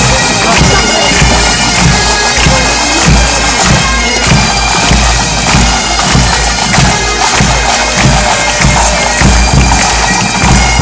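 Pipe band playing on the march: Highland bagpipes with their steady drones, over snare and bass drums keeping a regular marching beat.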